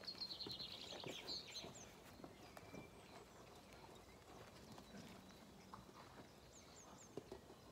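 Faint footfalls of lambs and a dog walking on grass and gravel. A small songbird sings a short twittering trill in the first second or so and gives a few brief high chirps near the end.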